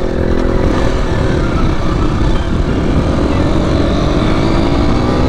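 HJ250 dirt bike's engine running under way, its pitch climbing from about halfway through as the bike accelerates.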